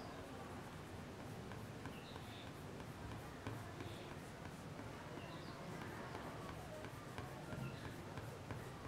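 Faint scratchy back-and-forth colouring strokes of a red colour stick shading on drawing paper.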